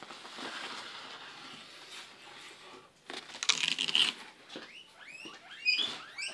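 Cardboard parcel packaging rustling as it is handled, then loudly crunched for about a second around three seconds in. Near the end, guinea pigs wheek in a run of short rising squeals.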